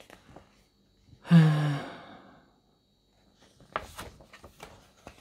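A man's voiced sigh a little over a second in, then the short rustles and crackles of a paper booklet's pages being flipped.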